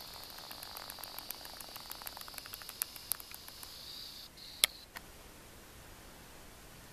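Steady high-pitched insect drone of a summer forest, with a scatter of light ticks and clicks through the first few seconds and one sharp click a little past the middle. The drone cuts off suddenly a little past four seconds, leaving faint outdoor hiss.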